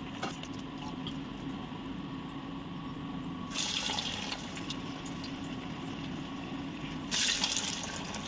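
Carrot vadas deep-frying in a pan of hot oil: a steady sizzle, swelling louder twice, about three and a half seconds in and again about seven seconds in.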